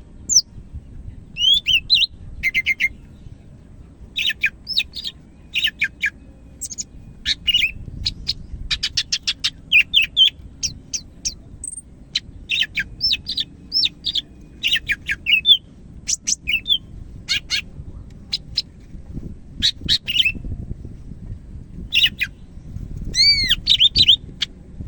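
Green leafbird (cucak ijo) singing vigorously: a fast, varied run of sharp chirps and whistled notes, many sweeping up and down, in quick phrases broken by short pauses.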